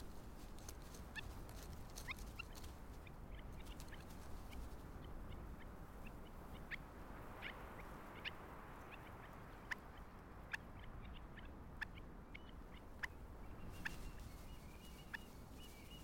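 Faint outdoor ambience: a low, steady hiss with about a dozen short, high bird chirps scattered through it.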